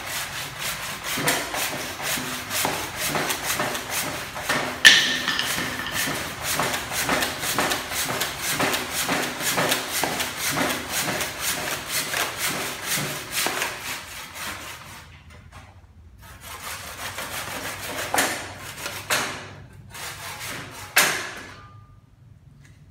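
Hand tool working oak wood: a quick, steady run of strokes, several a second, with one sharp ringing metallic clink about five seconds in. After about fourteen seconds the strokes stop, leaving a few separate knocks.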